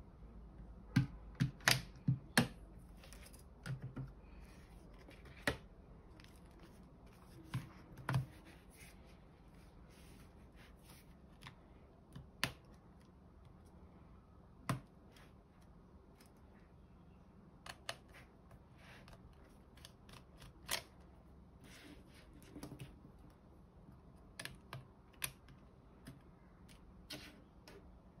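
Sharp plastic clicks and snaps as the rear housing of the OTOFIX D1 scanner is prised off its clips, loudest and closest together in the first couple of seconds. Then scattered single clicks and taps of small parts and tools being handled.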